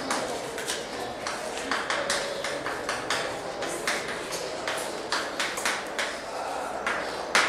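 Chalk writing on a chalkboard: an irregular run of sharp taps and short scratches, several a second, as letters are written.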